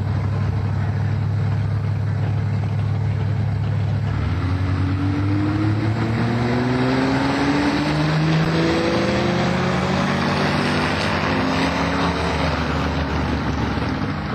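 Drag-racing car engines holding steady at the starting line, then launching down the strip: the engine pitch climbs, drops back at each gear change and climbs again through several gears.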